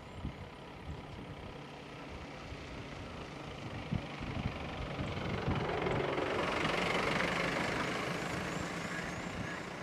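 A motor vehicle's engine running, with a vehicle growing louder, passing about seven seconds in, and fading away.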